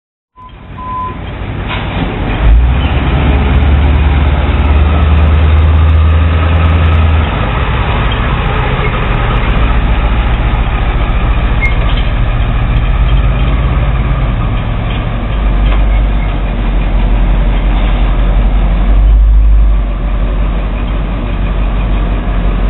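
Navistar 4600 truck's 7.3-litre V8 diesel engine running as the truck pulls away, a loud low rumble whose note shifts about seven seconds in and again about fifteen seconds in.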